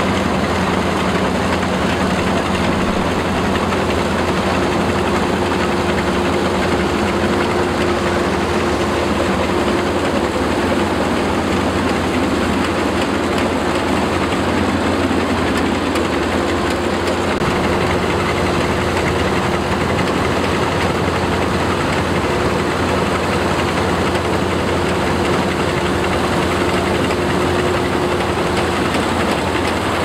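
Cheetah compact tracked rice combine harvester running while cutting rice: an even, unbroken machine noise of engine and working machinery, with a steady hum.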